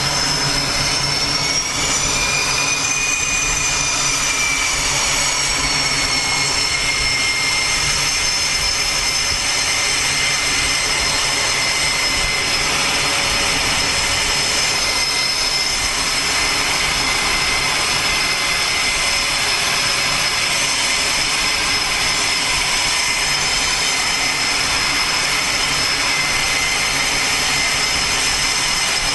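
Jet aircraft engines running with a steady high-pitched whine on a carrier flight deck while the jet's nose gear is taxied onto the catapult for launch. The whine rises a little about two seconds in, then holds steady.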